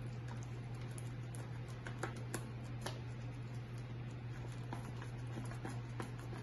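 Thick, sticky jalebi batter squelching and clicking irregularly as a gloved hand kneads and lifts it in a glass bowl, mixing in the food colour, over a steady low hum.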